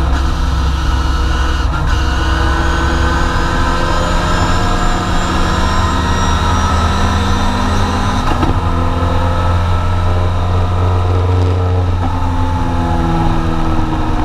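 Triumph TR4 race car's four-cylinder engine running hard, heard from inside the cabin, its note climbing steadily as the car accelerates, with a short break in the note about eight seconds in before it climbs again.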